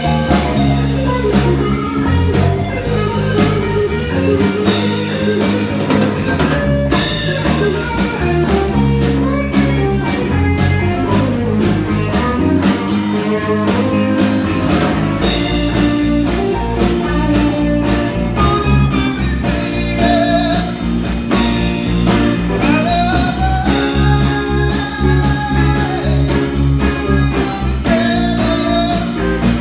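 Live blues trio playing: electric lead guitar with bending melodic lines over bass guitar and a drum kit. The drums get busier about halfway through.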